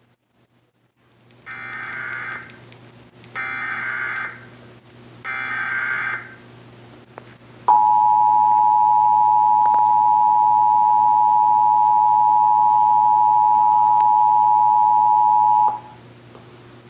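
Emergency Alert System signal opening a Required Monthly Test: three one-second bursts of SAME header data tones, about a second apart, then the two-tone attention signal held steadily for about eight seconds before cutting off sharply.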